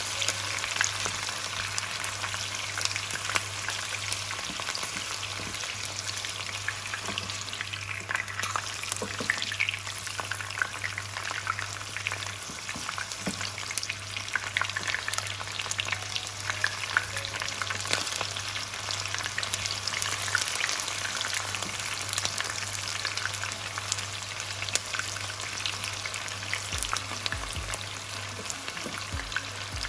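Long green peppers frying in hot oil in a nonstick pan: a steady crackling sizzle with many small pops, as wooden spoons turn them in the pan.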